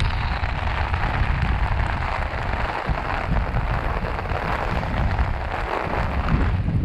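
Heavy tropical-storm rain pattering steadily, with gusty wind rumbling over the microphone.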